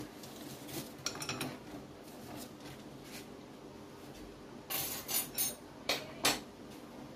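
Cutlery and dishes clinking and scraping: a couple of light clicks about a second in, then a quick run of five or six louder clinks and scrapes a few seconds later.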